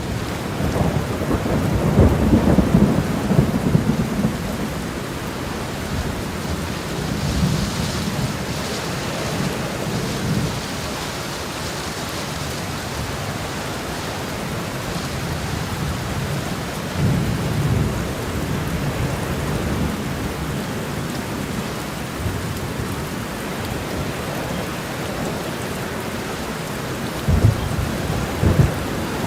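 Steady rain falling in a thunderstorm, with low rolls of thunder swelling several times, loudest a couple of seconds in and again near the end.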